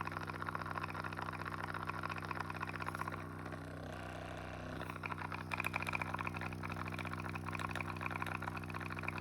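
A RecoverFun Mini percussion massage gun running, its motor humming steadily under a fast, dense rattle. The rattle is a new fault in the gun. It fades for a second or so about three seconds in, then returns louder.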